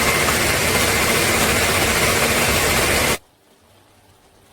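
Electric blender running at full speed, pureeing onions, garlic, ginger and ogiri into a seasoning paste. It is a loud, steady whirr that stops suddenly about three seconds in.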